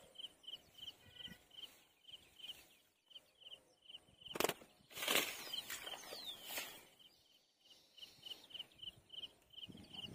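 An insect chirping steadily, about four short high chirps a second. A few sharp rustles or knocks come about halfway through.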